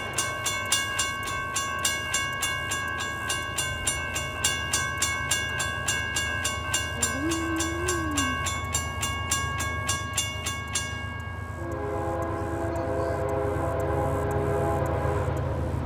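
A grade-crossing bell ringing about twice a second, which stops about eleven seconds in. Then the approaching CSX freight locomotive's air horn sounds a long held chord, over a low rumble.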